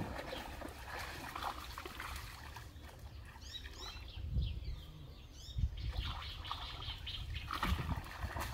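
Shallow muddy pond water sloshing and splashing as people wade and grope through it by hand, with a few short bird chirps in the middle.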